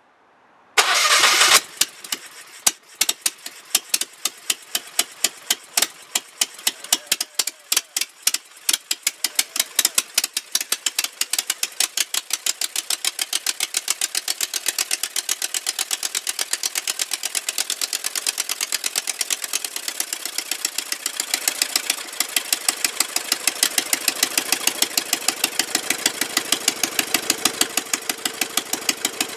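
Gasoline-converted Generac standby-generator V-twin engine cranking on its electric starter and catching about a second in, then running rough with loud uneven pops. The pops come quicker and more even as it keeps running on carburettors that are not yet dialled in.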